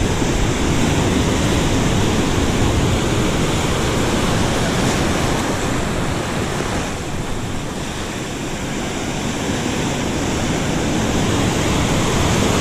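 Ocean surf washing and breaking over shoreline rocks close by, a steady rush of foaming water that eases a little midway and builds again near the end.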